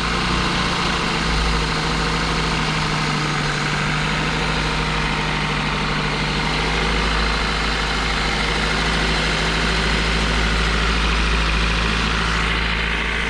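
Toyota Celica's 1ZZ-FE 1.8-litre inline-four, just rebuilt and on its first run, idling steadily with an even, unchanging note.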